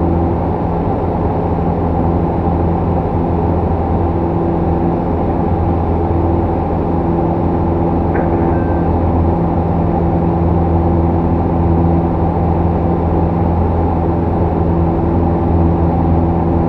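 Steady drone of a light single-engine airplane's piston engine and propeller in flight, heard inside the cockpit.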